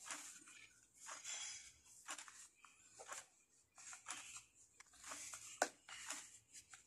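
Faint, irregular clicks, taps and scrapes of a vacuum cleaner's parts and wiring being handled during a repair, with one sharper click a little before the end.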